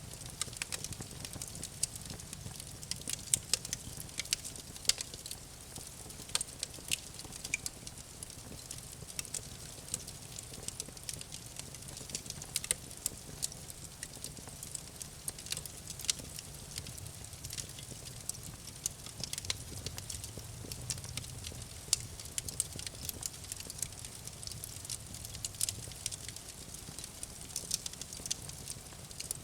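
Campfire burning, with irregular sharp crackles and pops from the burning wood over a steady low rumble of the flames.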